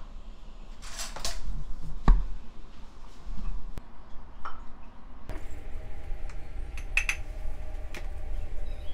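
Tableware being handled on a table: scattered knocks and clinks of dishes and food containers, the sharpest knock about two seconds in and a small cluster of clinks about seven seconds in.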